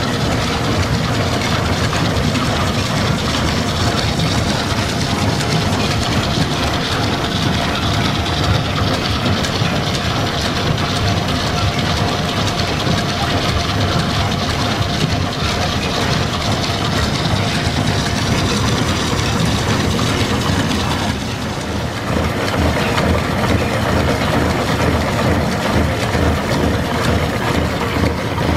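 Belt-driven milling machine running off line shafting, its gear cutter cutting teeth in a gear blank: a steady mechanical clatter and rumble. It goes briefly quieter a little past two-thirds of the way through.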